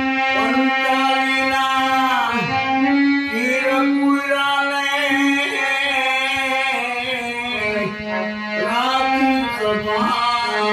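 Harmonium playing held, steady notes while a man sings a Gujarati devotional bhajan in raag Bhairavi over it, his voice entering in phrases that bend and glide in pitch.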